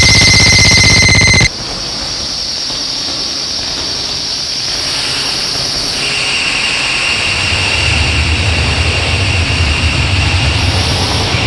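Harsh noise music from an analog synthesizer run through fuzz and distortion pedals. A loud, buzzing high tone cuts off abruptly about a second and a half in, leaving a steady hissing wash of noise. About six seconds in a thin high whine enters, followed by a low pulsing rumble.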